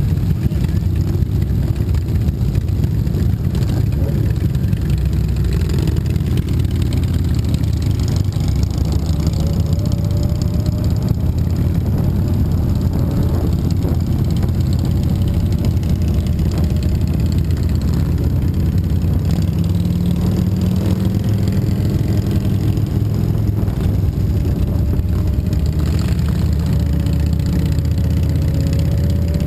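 Motorcycle engines running at road speed in a group, a steady low-pitched sound whose pitch drifts up and down a little as the bikes change speed.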